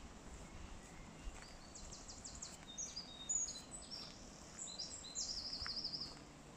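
A songbird singing a fast, high-pitched run of varied notes and quick down-sweeps that ends in a trill, over a faint steady background hiss.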